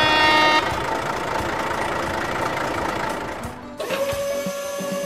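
Added vehicle sound effects for a toy dump truck: a horn-like toot that stops about half a second in, then a steady engine-like noise, and a long held tone near the end, over background music.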